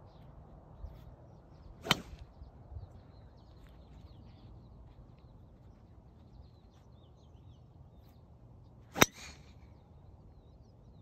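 Driver club striking a golf ball off the tee: one sharp, loud crack about nine seconds in. About two seconds in, a practice swing makes a shorter, quieter snap.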